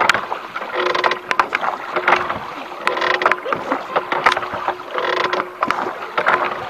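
Rowing strokes: a wooden oar blade splashing and churning through the water about every two seconds, with sharp clicks between the strokes.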